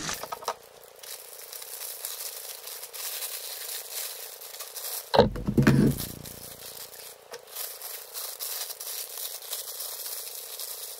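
Clear plastic bag crinkling and rustling as a 165 mm car speaker woofer is lifted from its box and unwrapped by hand, with a brief louder burst of handling noise about five seconds in.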